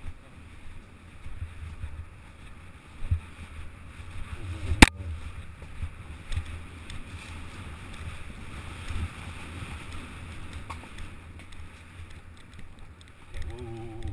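Wind buffeting the microphone as a low, uneven rumble, with one sharp knock about five seconds in.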